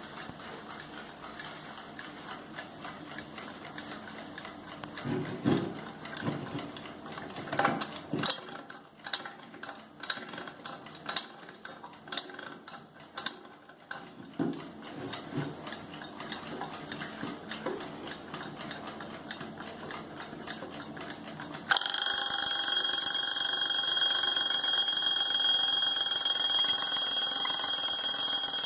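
Jerger alarm clock: a series of clicks and knocks from handling, then about 22 seconds in the alarm goes off and rings steadily and loudly at a high pitch.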